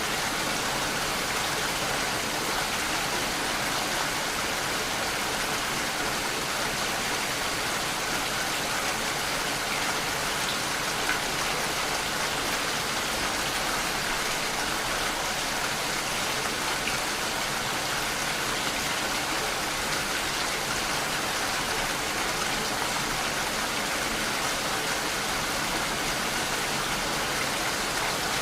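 Steady, even rain with no let-up, the patter of drops on a surface.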